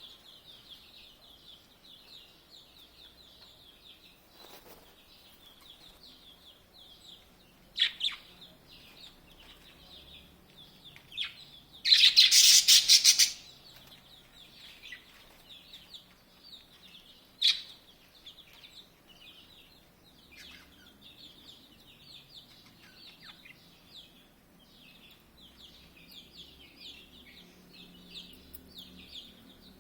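Many small birds chirping continuously in high, quick notes, with a few sharp, louder calls. About twelve seconds in, a loud harsh rasping burst lasts about a second and a half.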